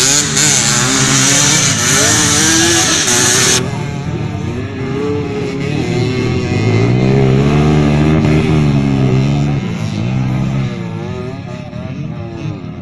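Motocross dirt bike engines revving up and down as the bikes race around the track, one or more passing close and loudest about seven to nine seconds in. A loud hiss over the engines cuts off suddenly about three and a half seconds in.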